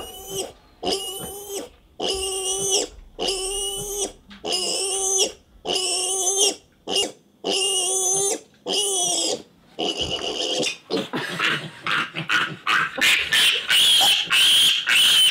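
Piglet squealing while held for a penicillin injection: about ten long, even squeals, then from about ten seconds in a faster string of short, harsher squeals, loudest near the end. The piglet is being treated for greasy pig disease and is strong enough now to make a fuss.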